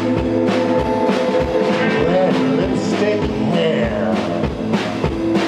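Live rock band playing: a drum kit keeps a steady beat of about two to three hits a second under sustained guitar chords, with some singing.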